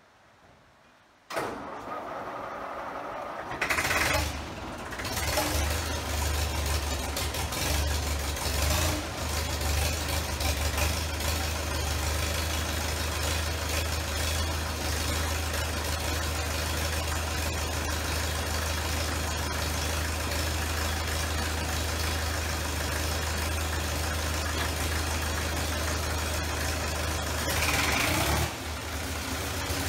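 Vintage crawler tractor engine being started: the starter turns it over for about two seconds, it catches, runs unevenly for a few seconds, then settles into a steady idle. Near the end it rises briefly and drops back.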